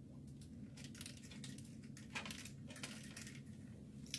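Light, scattered clicks and rustles of clear plastic balloon-stand sticks and connectors being handled during assembly, over a faint low room hum.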